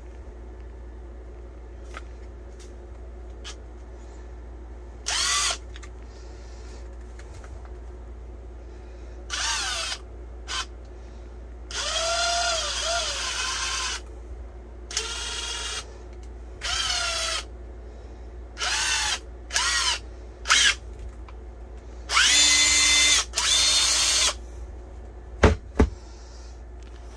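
Snap-on CT761A 14.4-volt 3/8-inch cordless impact wrench run unloaded in about eleven short trigger bursts of varying length. Its motor and gears whine as they spin up and wind down. Two sharp knocks come near the end as the tool is set down on the table.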